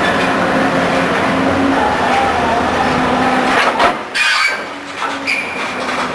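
Rotary drilling rig running with a steady machine drone, broken by a sharp clank about four seconds in, after which the noise drops and turns quieter and more uneven.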